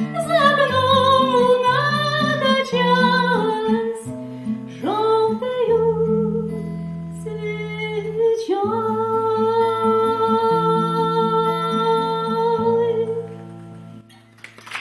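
A woman singing a wordless melody over acoustic guitar in the closing bars of a bard-style song. Her long held notes slide up into pitch a few times, and the music fades out near the end.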